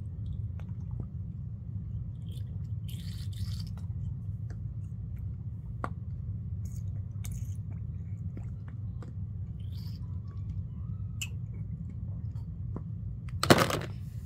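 Small clicks, taps and brief rustles from handling toy baby dolls and feeding items close to the microphone, over a steady low hum. A louder rustle or bump comes near the end.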